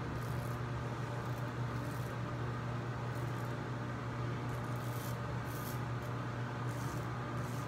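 Xpersis Professional safety razor scraping through lathered stubble in a series of short strokes, over a steady low hum.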